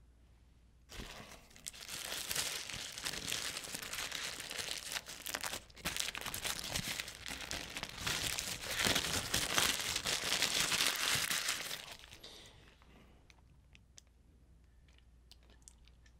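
Paper wrapper of a McDonald's cheeseburger being unwrapped by hand, crinkling and rustling for about eleven seconds. It starts about a second in and stops near the end, leaving a few faint clicks.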